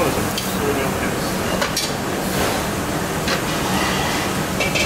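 Commercial kitchen ambience: a steady rushing of ventilation noise with a few short sharp clinks scattered through it.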